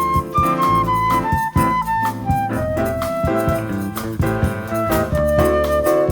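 Small jazz band playing an instrumental passage: a melody of held single notes over piano chords, bass and light percussion strikes.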